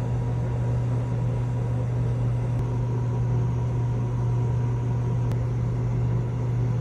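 A loud, steady low hum with a faint higher steady tone over it, unchanging, the kind of mains hum a running appliance gives off.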